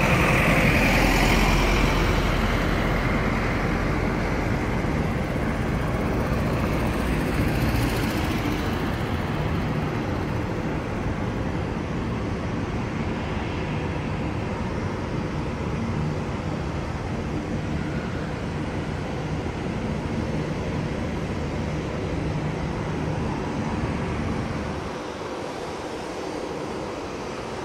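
Twin-engine jet airliner taxiing some way off, its engines giving a steady rumble and hiss. A service truck driving close by is loudest at the start and fades over the first few seconds. The sound drops a little near the end.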